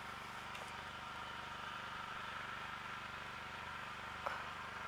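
A steady, faint low mechanical hum, like a distant engine running, with one small click about four seconds in.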